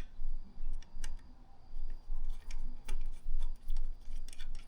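Scattered sharp metallic clicks and taps from fitting an aftermarket heat shield and its hose clamps onto a motorcycle's wrapped exhaust header.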